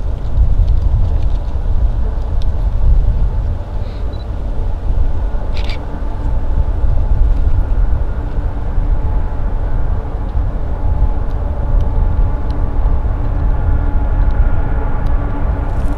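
Distant diesel locomotives of an approaching loaded coal train, GE ES44AC and ET44AC units, heard as a heavy low rumble. Faint engine tones build up from about ten seconds in as the train nears.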